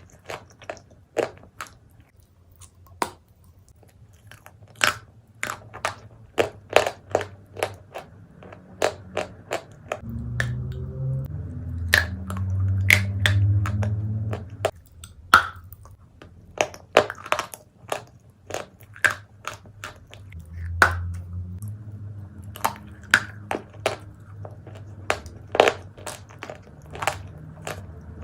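Close-up crunching and chewing of dry Turkestan clay: a long run of sharp, crisp cracks as pieces are bitten and broken, with a low hum underneath at times.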